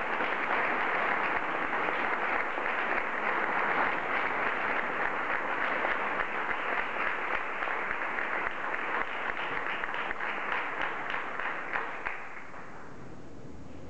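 Audience applauding, a dense steady clapping that fades away about twelve seconds in.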